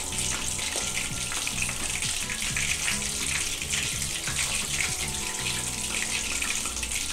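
Cornflake-coated chicken pieces deep-frying in oil on a low flame: a steady crackling sizzle.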